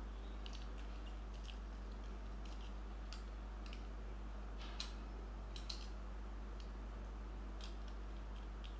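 Small plastic toy parts and a paper leaflet being handled: sparse soft crinkles and light plastic clicks, with two slightly louder clicks around the middle, over a steady low electrical hum.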